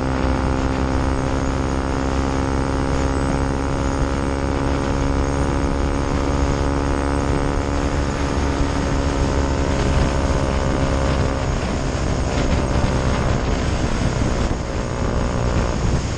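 KTM Duke 125's single-cylinder four-stroke engine running at a steady pitch while riding along, with wind rushing over the microphone. About two-thirds of the way through, the steady engine note fades back under the wind and road noise.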